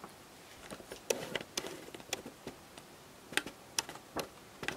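Large rolled paper poster rustling and crackling faintly as it is held up and handled, with scattered light clicks of the stiff paper.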